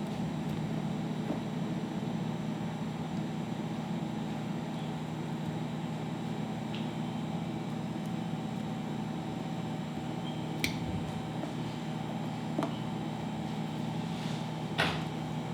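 Steady mechanical hum of room ventilation, with a few light clicks and taps in the last few seconds.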